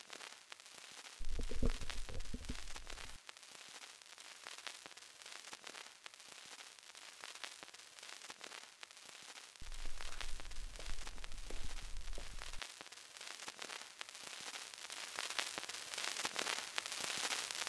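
A crackling hiss, like surface noise, with two stretches of low rumble, the first a little over a second in and the second about ten seconds in, growing louder towards the end.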